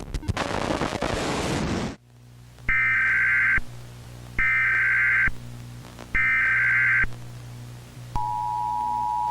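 Emergency Alert System tones: about two seconds of hissing static that cuts off suddenly, then three short bursts of the SAME data header, each under a second, and near the end the steady two-tone EAS attention signal begins. A low hum runs underneath.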